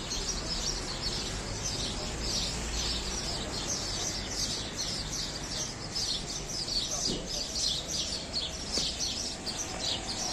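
A flock of small birds chirping continuously, a dense stream of short, high chirps overlapping one another, over a low background rumble.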